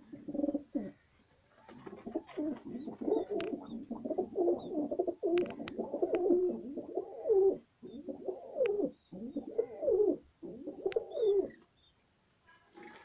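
Several white domestic pigeons cooing, their calls overlapping almost without a break, with a few sharp clicks among them. The cooing dies away about a second and a half before the end.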